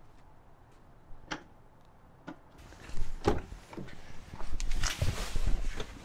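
Power liftgate of an SUV finishing its close, quiet apart from a light click about a second in. Then a thump and a stretch of rustling and knocking as a person climbs into the driver's seat through the open front door.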